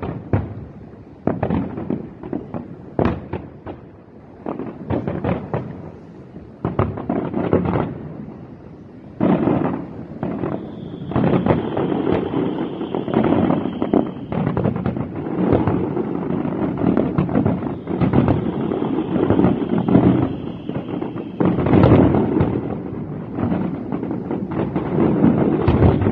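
Fireworks display: separate shell bursts banging one after another for the first several seconds, then from about nine seconds in a dense, continuous barrage of bangs and crackling.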